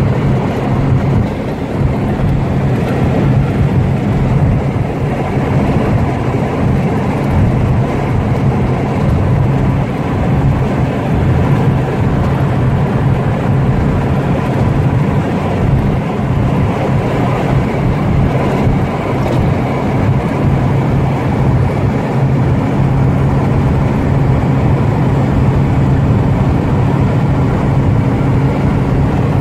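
Car driving at steady highway speed, heard from inside the cabin: a constant engine drone under road and wind noise.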